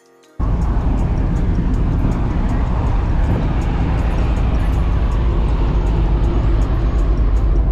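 Steady roar of wind and the low rumble of a large ferry's machinery on the open top deck of the ship under way. It cuts in sharply about half a second in.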